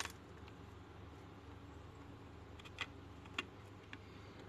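Sharp plastic clicks of a Huawei Mate 10 lite's back cover being pressed and snapped onto the phone body: one at the start, then three more between about three and four seconds in. A low steady hum runs underneath.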